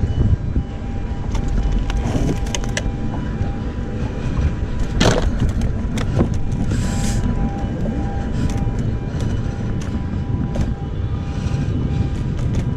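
Steady low rumble with a faint steady hum over it, broken by a few sharp knocks, the loudest about five seconds in.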